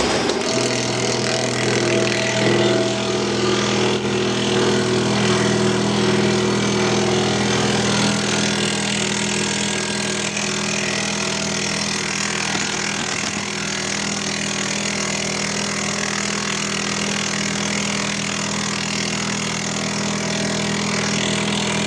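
A 305 variable-frequency tobacco cutting machine runs steadily as it shreds leaf tobacco: a constant motor hum under an even hiss, settling to a steady pitch about half a second in.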